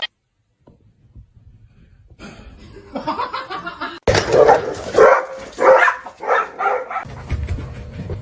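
Dog barking, a run of loud barks about half a second apart.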